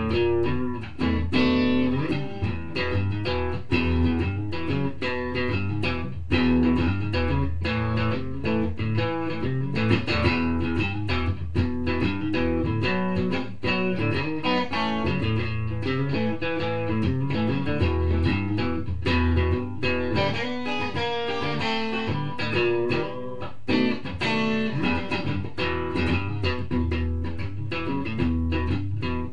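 Guitar-led instrumental music with a steady bass line, many quickly picked notes and no singing.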